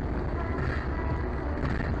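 Steady low rumble of a moving car, heard from inside the cabin.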